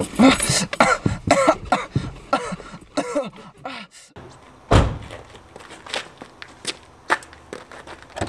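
Short strained cries and grunts of a struggle, then one heavy thump a little under five seconds in, followed by footsteps and small knocks.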